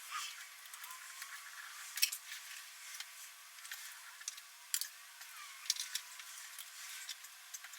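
A handful of scattered sharp clicks and knocks, with light rustling between them, from hands working the cover's hardware during the install.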